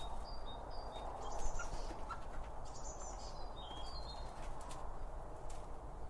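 Small garden birds calling: short, high chirps and twitters come in scattered clusters, over a steady low background rumble.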